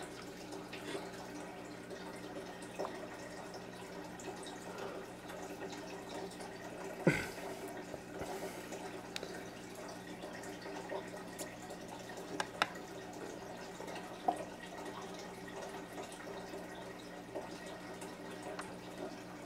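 A steady low hum with faint scattered clicks and ticks, and one sharper knock about seven seconds in.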